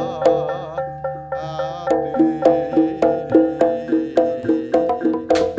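Gamelan-style music: bright struck metal mallet instruments ring out a quick repeating melody, about four notes a second, with sharp drum or wood-block strokes between them.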